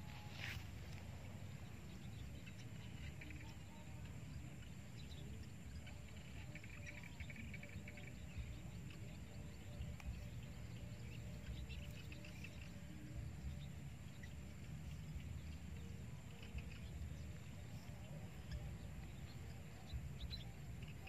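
Open-air rice-field ambience: a low, fluctuating rumble like wind on the microphone, with faint scattered bird chirps and a thin steady high tone.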